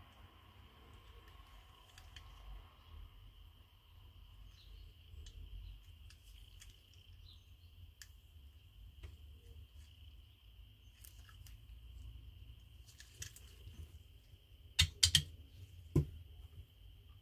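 Light clicks and taps of diecast toy cars and their packaging being handled, with a cluster of sharp clicks near the end, over a faint steady high-pitched hum.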